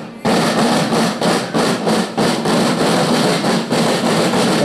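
A marching drum corps of many field drums playing a marching cadence together, strokes falling about four times a second after a brief gap at the start.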